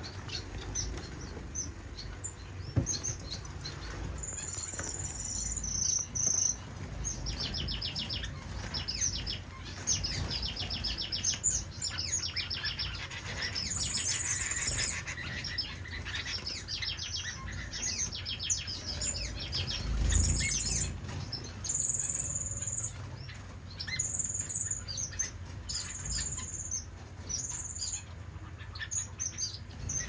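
Caged finches chirping and calling again and again, with wings fluttering as birds flit between perches.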